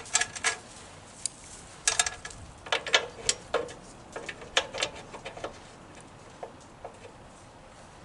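Metal hand tools clicking and clinking against the small engine's parts during hands-on repair work: irregular light clinks, some with a short metallic ring, thinning out after about five seconds.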